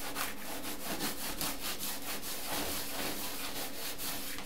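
A cloth rubbed in quick repeated strokes over the painted surface of a canvas, a steady rubbing hiss.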